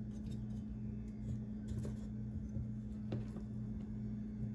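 Soft, scattered taps as spice-coated bitter gourd slices are set one by one into an air fryer's basket, over a steady low hum.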